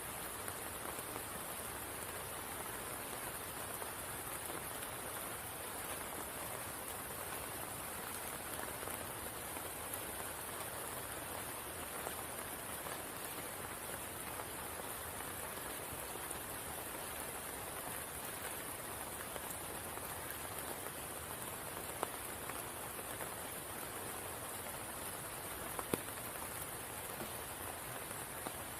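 Steady rain falling on the water of a spring pool, an even patter, with a couple of single louder drops in the second half.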